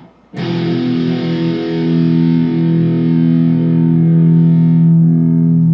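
Electric guitar played through a distortion pedal and amp. A chord is struck just after a momentary break and rings out, sustaining; its bright upper edge fades about five seconds in, leaving the low notes holding.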